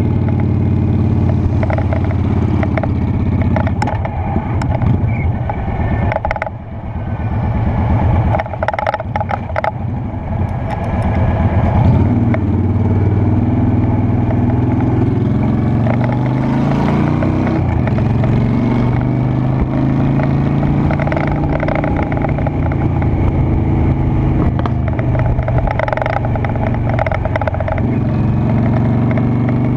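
Honda Shadow Spirit 750's V-twin engine running under way, loud and steady. About six seconds in it briefly drops off, then builds back up, and its pitch rises again a little past halfway.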